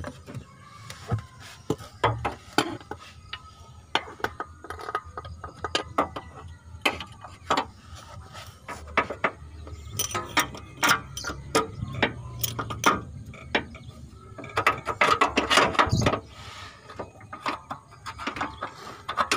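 Irregular metallic clicking and clanking of a hydraulic bottle jack being worked and a new rubber engine mount being pushed into its bracket under a car.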